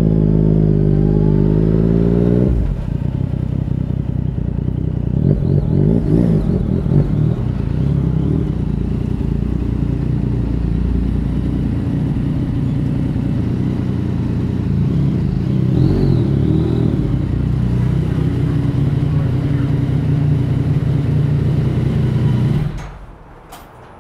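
Yamaha MT-09 inline-three engine rising in pitch under light throttle for about two and a half seconds, then running steadily at low revs. It is switched off about a second before the end.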